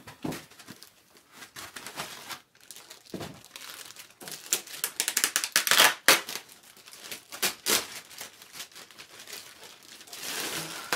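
Clear plastic bag crinkling and rustling as it is worked off a network video recorder, in irregular bursts that are loudest about halfway through.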